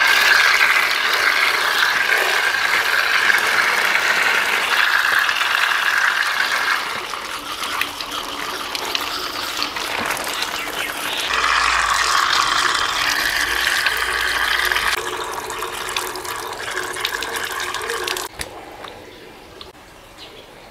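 Tap water running hard and splashing onto a concrete floor as things are rinsed under it, the sound changing as hands and a bamboo basket move in and out of the stream. The tap is shut off abruptly a couple of seconds before the end.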